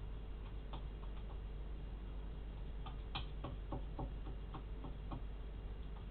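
A series of light clicks and taps, irregular at first, then about three a second from about halfway in, over a steady low hum.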